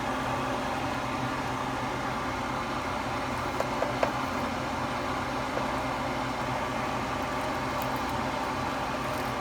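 Steady mechanical hum and hiss of room background noise, with a few light clicks about four seconds in.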